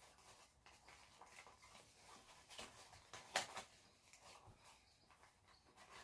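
Faint handling noise: small plastic nebulizer parts and a soft carry pouch being packed together, with scattered light ticks and rustles and one sharper click a little past halfway.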